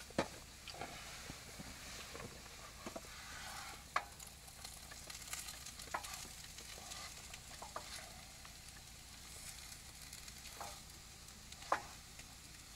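Potatoes with lard and onion frying in a pan, a faint steady sizzle, with a spoon stirring and knocking against the pan in occasional sharp clicks.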